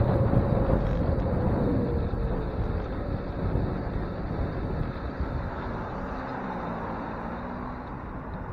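Wind rushing over a bicycle's handlebar-mounted camera microphone, mixed with tyre and road rumble while riding downhill. It grows gradually quieter as the bike slows toward an intersection. A faint whine in the first two seconds drops slightly in pitch and fades.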